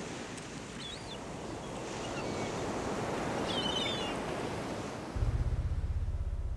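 Sea waves washing against the shore and groyne, with two faint short chirps. A low pulsing drone starts abruptly about five seconds in.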